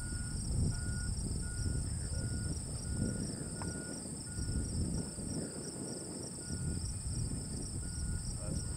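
Insects, crickets or katydids, buzzing steadily in a high chorus, one layer pulsing quickly, over a fluctuating low rumble of wind on the microphone. A faint high beep repeats evenly, a little under twice a second.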